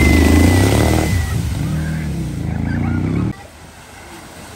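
Motorcycle engine revving hard as the bike ploughs through deep floodwater, with the hiss of spray thrown up around it. A little over three seconds in it cuts off abruptly to a much quieter wash of water as a car wades into the ford.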